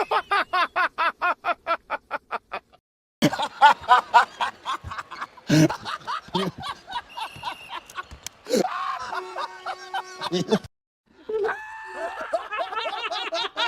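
A string of different laugh sound effects cut one after another: first a rapid 'ha-ha-ha' of about six pulses a second that fades out, then other people's snickers and chuckles. The laughs are separated by two brief silent breaks, and steady held tones sound under the laughing near the middle.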